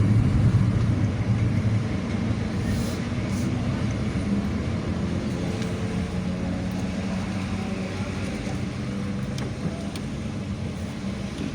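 Motor vehicle engine running with a steady low hum that slowly gets a little quieter.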